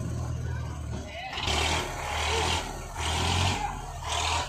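Eicher 548 tractor's three-cylinder diesel engine running under load as it manoeuvres. From about a second in, three bursts of harsh rushing noise come over the engine, each about a second long.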